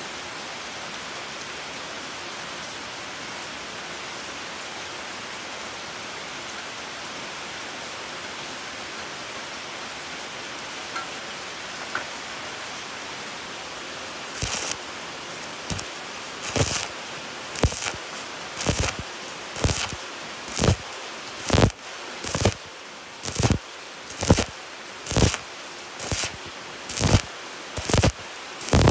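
Stick-welding arc on galvanized steel square tube, struck in short crackling bursts about once a second with brief breaks between them, as the electrode is repeatedly lit and lifted. Before the first strike, halfway in, there is only a steady hiss.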